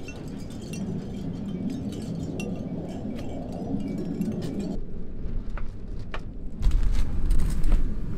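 Gusty wind with light metallic chiming and clinking throughout. About six and a half seconds in, the wind starts buffeting the microphone with a loud low rumble.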